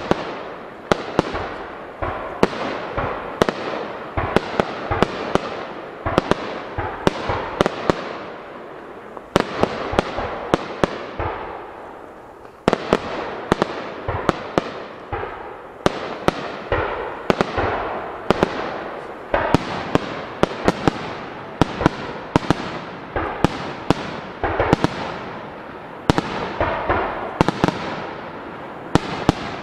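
Starmine fireworks barrage: aerial shells bursting in a dense, rapid run of sharp bangs, several a second. A short lull about twelve seconds in, then the bangs build again.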